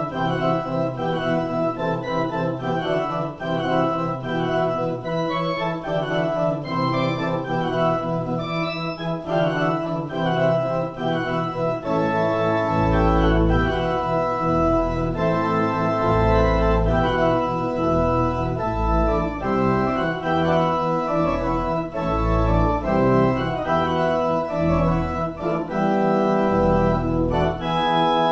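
Organ playing slow, held chords; deep bass notes come in about halfway through.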